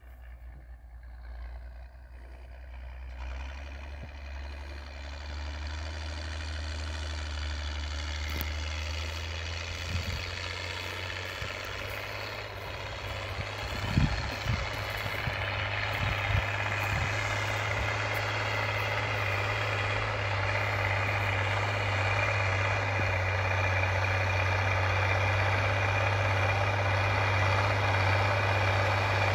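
IMT 5136 Turbo tractor's diesel engine working under load as it pulls a disc harrow, growing steadily louder as it comes closer. Its low drone steps up in pitch about a third of the way in, and a few low thumps come around the middle.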